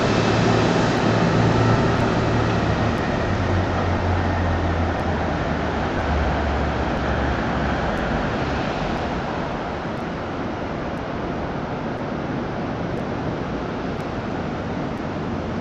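Steady wash of city street traffic heard from high above, with a low engine hum that drops in pitch over the first half and fades as the overall noise eases slightly.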